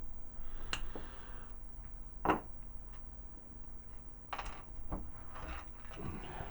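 Scattered small plastic clicks and taps, about six in all with the sharpest a little past two seconds in, as small plastic filler tabs are handled and fitted into a plastic toy figure.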